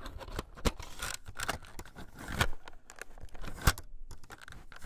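Crackling, popping static with irregular clicks and a brief dropout near the end, the noise of an old videotape starting to play with its picture breaking up.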